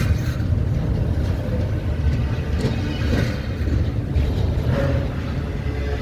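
Freight train running by with a steady low rumble.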